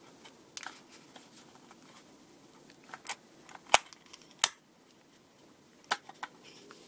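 Sharp plastic clicks and snaps, about six spread out with quiet gaps, as the body shell of an HO-scale model train is worked onto its chassis; the loudest click comes a little before the middle.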